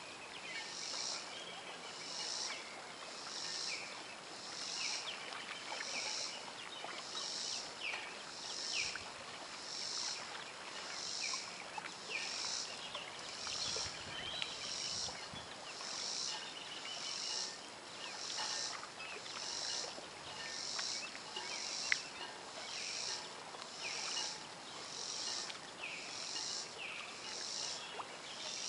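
Insects calling in an even pulsing rhythm, a high-pitched pulse a little over once a second, over a steady outdoor hiss, with now and then a faint short falling chirp. A single sharp click about 22 seconds in.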